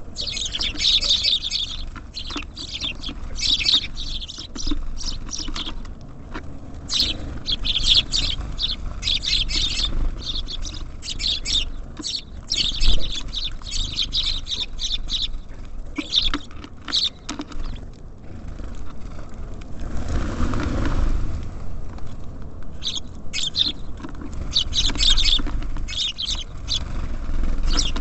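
Small songbirds, tits and sparrows, chirping and calling in quick, dense runs over a low rumble. A brief swell of rushing noise comes about twenty seconds in.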